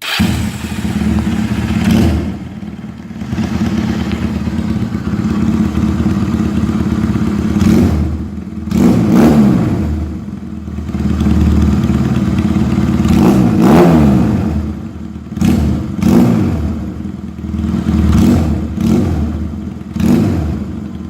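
Traxx Shark 250 motorcycle engine running loud through a homemade exhaust welded from 2-inch pipe, with a strong rumble. The throttle is blipped over and over, the revs rising and falling about ten times, with short quick blips near the end.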